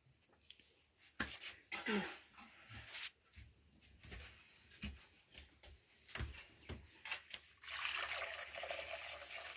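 A few light clanks and knocks as an iron karahi with ring handles is handled and set on a clay hearth. Then, near the end, milk is poured from a pot into the pan in a steady splashing stream.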